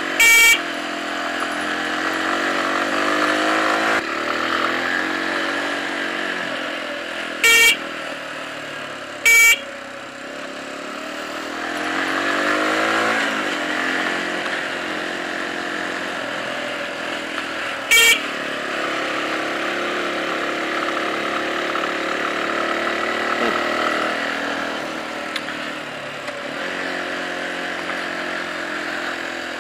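Small Jialing motorcycle engine running on a climb, its pitch rising and falling with the throttle, with short horn beeps: one right at the start, two about 7.5 and 9.5 seconds in, and one about 18 seconds in, sounded as warnings where a sign asks riders to honk.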